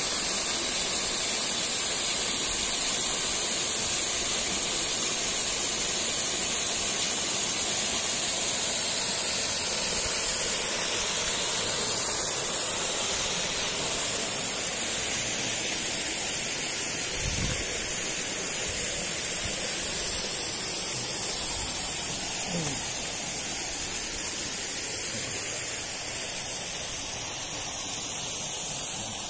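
Waterfall: a steady rush of falling water, easing off slightly near the end.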